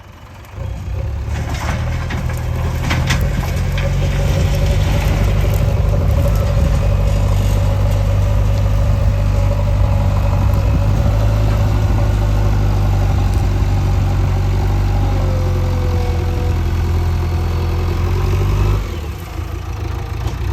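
JCB 3DX backhoe loader's diesel engine picks up about half a second in and runs loud and steady under load, with a few clanks a couple of seconds in. It drops back shortly before the end.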